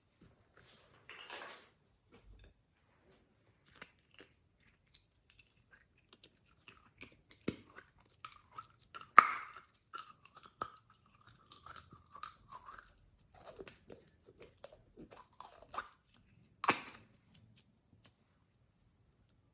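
Glossy slime being squished and worked by hand, with scattered sticky clicks and crackles. Louder pops come about nine seconds in and again near the end, with a thin wavering squeak for a few seconds between them.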